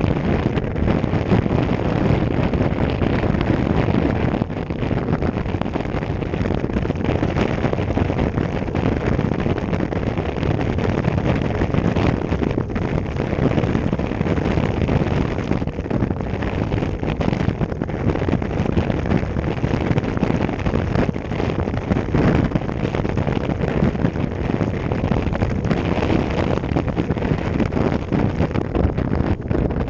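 Steady wind rushing over a handlebar camera's microphone on a road bike moving at speed: a dense, even, low noise with no distinct tones.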